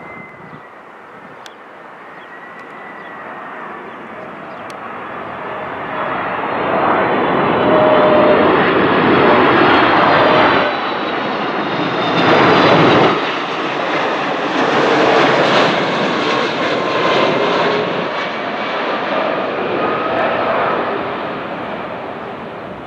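Boeing 767-300 jetliner passing on its landing approach: the jet engines' rumble swells to a loud peak and then slowly fades, with a high engine whine that slides gradually down in pitch as the aircraft goes by.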